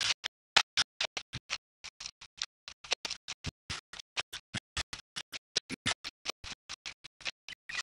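Gunfire in a battle: a rapid, uneven string of sharp shots, several a second, with no letup.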